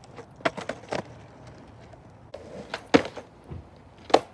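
A few sharp knocks and clatters at irregular intervals, the loudest about three seconds in and another near the end.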